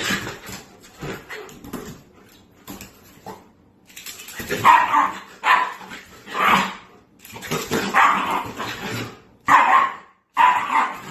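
A dog barking repeatedly: about half a dozen separate barks in the second half, each roughly a second apart.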